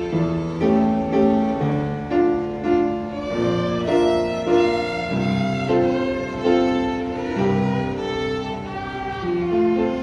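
Students' violins playing a bowed melody, note following note about every half second.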